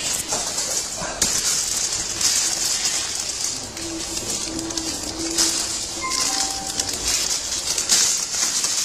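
Handling noise from assembly: irregular rustling and light clatter of plastic parts, with a plastic bag crinkling near the end, over a steady hiss.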